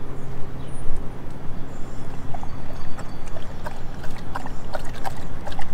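Dogs lapping water from a bowl: a run of quick wet clicks, about three a second, in the second half, over a steady low hum.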